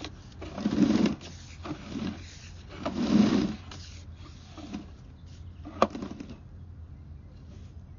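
Sewer inspection camera's push cable being fed into the line by hand: two longer spells of scraping and rubbing, a few shorter ones, and one sharp click near six seconds in.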